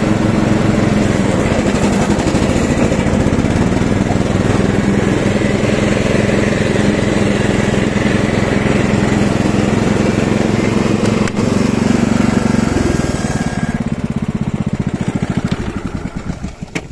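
Riding lawn tractor's 12.5 hp engine running steadily as it drives. About thirteen seconds in the engine note drops away and the sound fades out as it is shut down.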